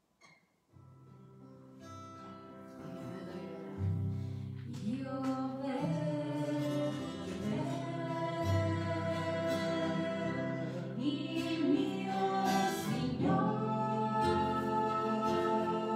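Acoustic guitar played, starting about a second in and growing louder, joined about four seconds in by several voices singing together.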